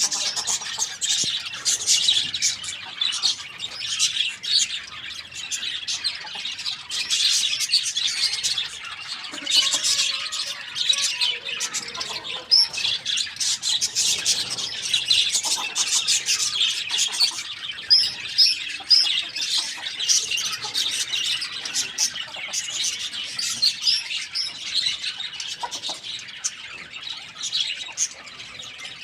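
A crowd of small birds chirping and chattering without a break, many short high calls overlapping.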